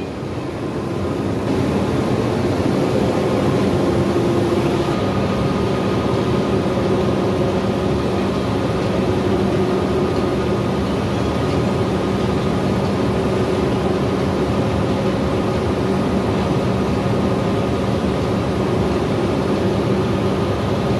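Sugar factory machinery at a sack-filling conveyor line running steadily: a constant loud drone with a few steady hum tones, growing a little louder in the first two seconds.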